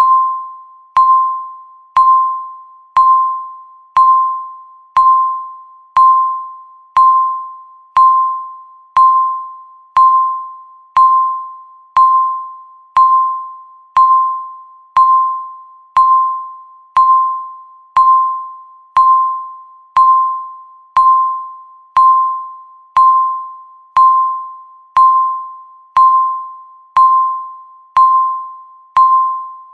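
Countdown timer beep: a single short, high electronic ping once every second, each starting sharply and fading quickly, in an even, unbroken rhythm.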